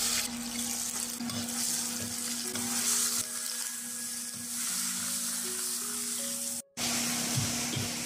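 Hot oil sizzling in a wok as garlic and then blanched ground fungus (Nostoc commune) are stir-fried, turned with a metal spatula.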